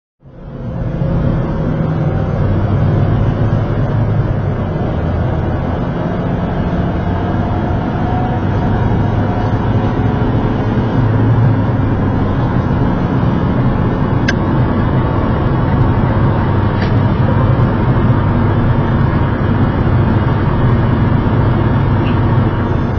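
Car driving on a motorway, heard from inside the cabin through a dashcam: steady engine hum and road noise that start abruptly, with a couple of faint clicks in the second half.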